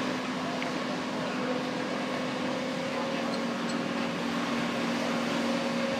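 Heavy diesel engine running steadily: an even, constant drone with a steady hum.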